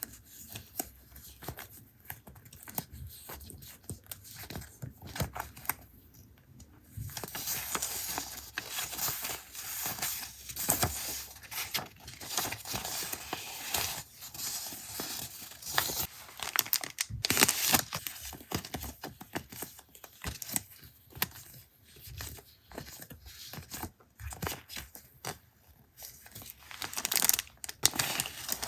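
Paper being worked by hand for a journal collage: small taps and rustles, then a long stretch of paper tearing and crinkling, followed by shorter bursts of rustling and tearing.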